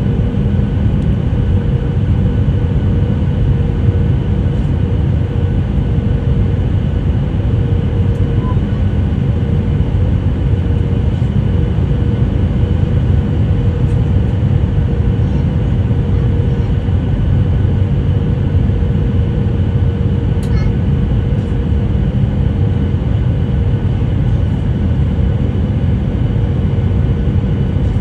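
Steady airliner cabin noise during the descent to land: the jet engines and rushing air make a constant low rumble with a few steady hums, heard from inside the cabin.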